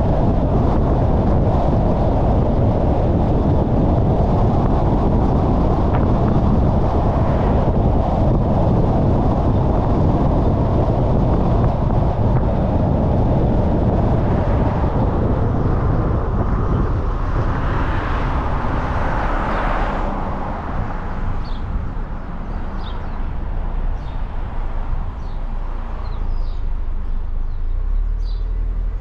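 Car driving along a road: steady tyre and wind noise that eases off about two-thirds of the way through as the car slows. Short high chirps come in now and then near the end.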